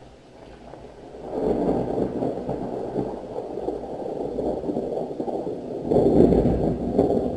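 Thunder rumbling, swelling in about a second in and rolling louder again near the end.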